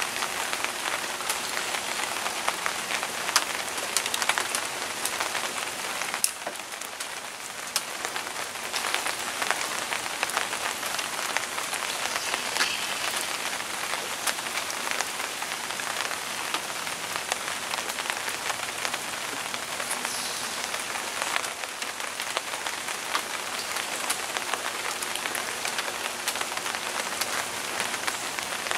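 Steady rain falling, with many sharp drop hits close by.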